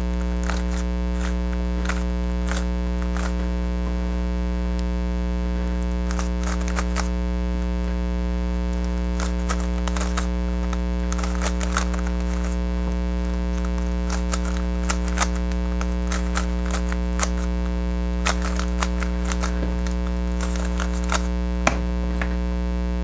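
Scattered quick clicks and clacks of a plastic speed cube being turned fast during a solve, some in rapid runs. Under them runs a louder steady electrical hum with a stack of overtones.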